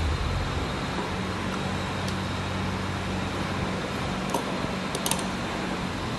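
Steady workshop background noise with a low hum, and a few light clicks from small pump parts being handled, around four and five seconds in.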